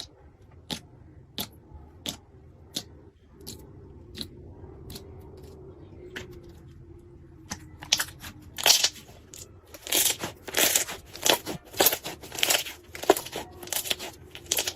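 Slime being pressed and squeezed by hand, making crisp crackling and popping clicks. They come sparse and evenly spaced at first, then turn faster and louder about eight seconds in.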